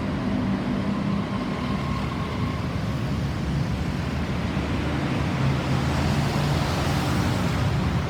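Steady road traffic noise: vehicle engines humming and tyre noise, with no siren heard.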